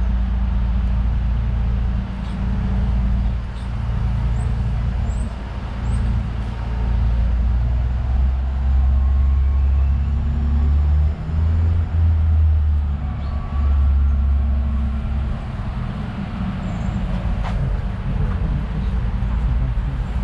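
City street traffic: passing vehicles' engines make a heavy, continuous low rumble that grows strongest in the middle and eases off after about fifteen seconds.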